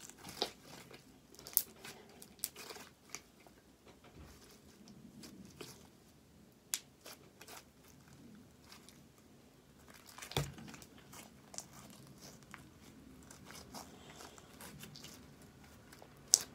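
Slime being stretched and squeezed by hand, tearing apart with faint scattered crackles and small pops.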